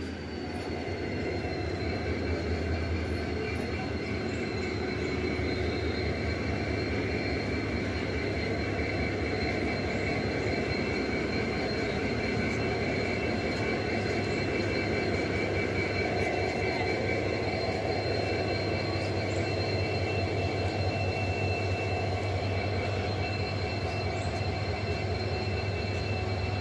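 WDP4B diesel-electric locomotive running as it moves slowly past at close range: a steady, heavy low engine rumble with a high whine held over it throughout.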